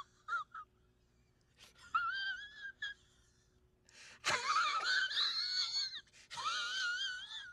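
A high-pitched, wavering vocal wail in several drawn-out stretches, rising and falling in pitch, with the loudest stretch in the middle.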